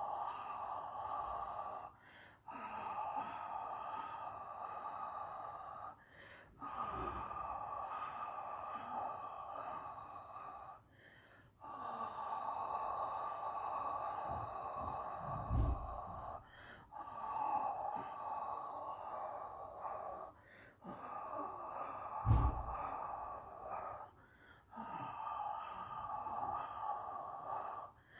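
A person breathing out long and hard, or blowing, in stretches of three to five seconds with short pauses between. Two low thumps come partway through.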